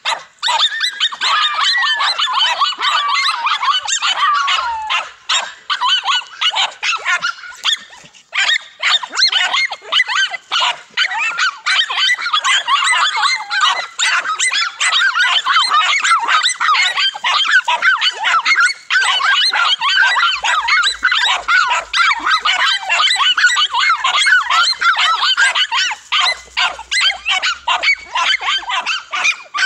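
Several dogs barking and yapping at once, a dense, unbroken clamour of overlapping barks, with whining yelps in the first few seconds: a pack holding a cornered lizard at bay.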